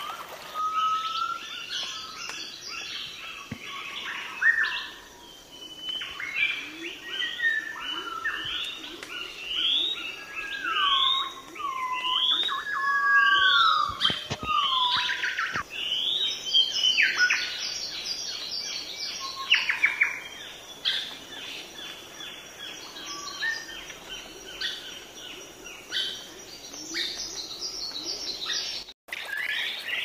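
Several birds singing at once: overlapping chirps and trills, with a run of rising whistled notes about once a second in the middle. The sound drops out for a moment near the end.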